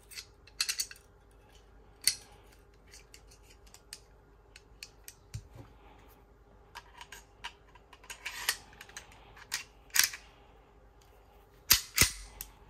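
Beretta 92X Performance pistol being handled and reassembled, the slide going back onto the frame: scattered small metallic clicks, with a few sharper clacks and two of the loudest near the end.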